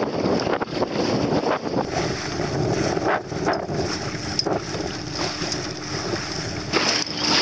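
Wind buffeting the microphone and water rushing and splashing along the hull of a small sailing dinghy under way in choppy water, with a few short slaps of water against the bow.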